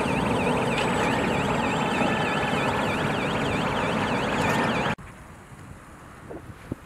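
Heavy truck running as it pulls away, with a warbling warning alarm sweeping up and down about two and a half times a second above the engine. The sound cuts off suddenly about five seconds in, leaving a much quieter wind-like background with a few faint knocks.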